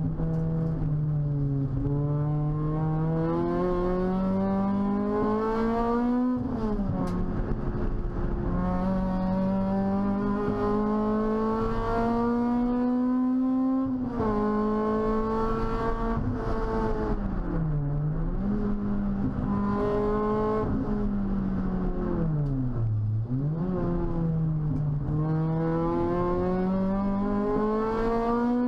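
Toyota Celica T-Sport's 1.8-litre four-cylinder VVTL-i engine heard from inside the cabin under hard acceleration on track. The pitch climbs steadily and drops suddenly at gear changes about six and fourteen seconds in, dips and recovers twice later, then climbs again near the end.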